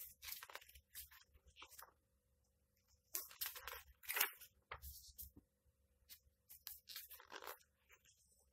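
Paper pages of a hardcover comic book being turned by hand, rustling and flapping in three bursts.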